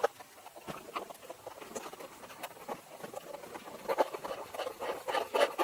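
Self-drilling screw being driven into a plastic licence plate holder, cutting its own hole as it goes: irregular small clicks and scratching of screw and tool on plastic, getting busier and louder in the last couple of seconds.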